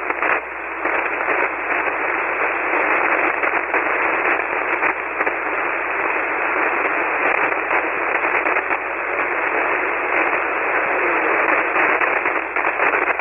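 HF ham transceiver receiving an open single-sideband voice channel on the 40-metre band: steady band-noise hiss squeezed into the narrow voice passband, flecked with static crackles, which the operator puts down to a lightning storm somewhere close by.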